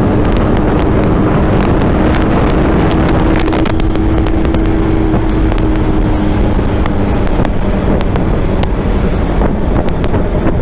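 Honda CBR650F inline-four motorcycle engine running at a fairly steady speed under way, with wind rushing over the microphone.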